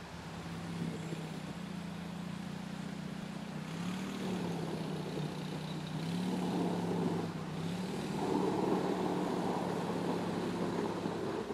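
Argo eight-wheel amphibious ATV's engine running as it drives on a gravel road. The engine pitch rises and falls a few times over a noisy crunch of tyres on gravel that grows louder as it comes closer, and the sound cuts off suddenly near the end.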